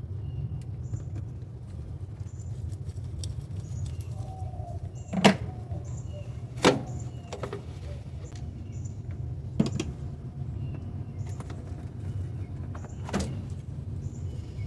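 A few sharp clicks and knocks, like parts or tools handled in a car's engine bay, over a steady low rumble.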